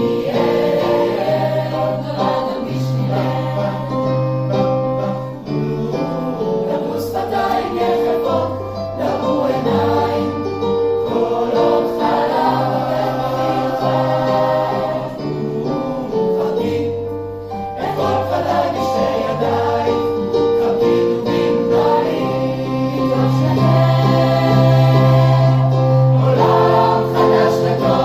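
Choir singing a Hebrew song in several parts: held chords over a low bass line that steps to a new note every second or two.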